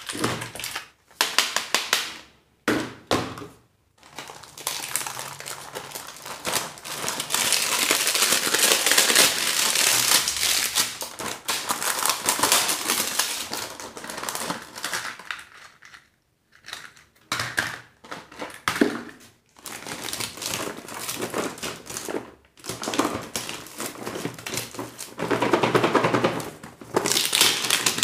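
Wrappers and packaging of surprise eggs and candies crinkling and crunching as they are handled and torn open, in long runs with short pauses.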